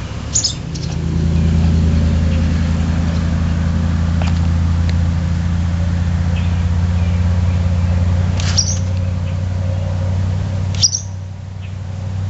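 Steady low motor hum with a few short, high chirps of barn swallows over it: one near the start, one about two-thirds through, one near the end.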